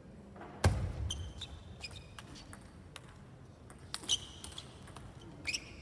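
Table tennis rally: a low thump as the serve goes about half a second in, then sparse light clicks of the ball on bats and table, with several short high squeaks of shoes on the court floor.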